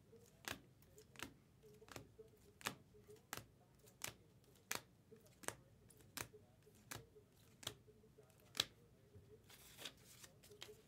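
Bowman Chrome baseball cards being flipped through one at a time, each card flicked off the stack with a short faint click, about one every 0.7 seconds, the sharpest one near the end. A brief rustle follows as a hand reaches down to the table.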